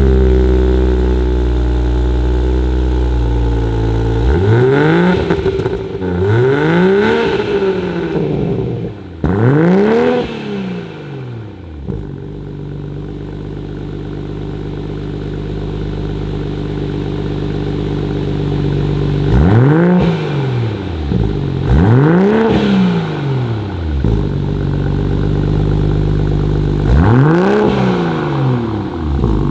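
Toyota Supra engine through an aFe Takeda 3-inch stainless steel exhaust, idling and blipped six times: three quick revs, a stretch of steady idle, then three more revs, each rising and falling in pitch.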